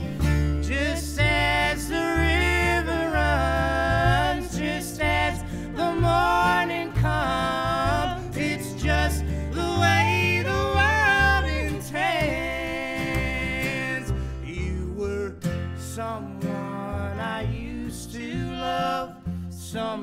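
Live acoustic country-folk song: a woman's and a man's voice singing together in harmony over strummed acoustic guitar and plucked upright bass. The singing eases off about two-thirds of the way through, leaving mostly the instruments.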